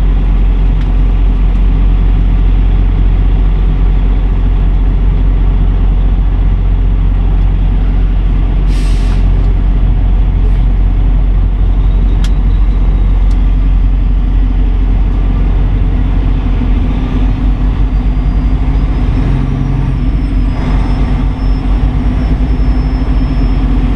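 Diesel engine of a Kenworth W900 semi truck running under way, heard as a steady low drone inside the cab. A short hiss comes about nine seconds in, and the engine note changes from about seventeen seconds.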